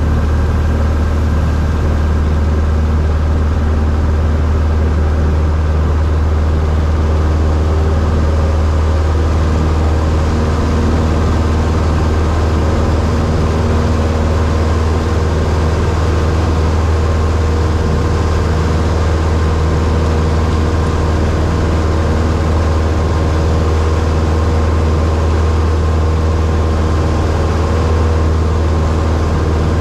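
Single-engine propeller airplane's piston engine running at takeoff power through the takeoff run and climb-out, heard inside the cabin as a loud, steady drone.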